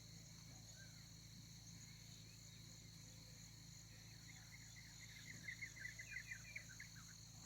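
Faint steady trilling of crickets or similar insects, with a low steady hum underneath. About five seconds in, a quick run of about ten short chirps comes and goes.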